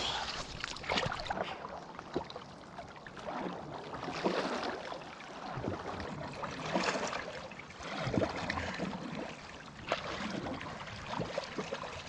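River water splashing and churning around a swimmer being towed along on a paddleboard leash, with irregular splashes.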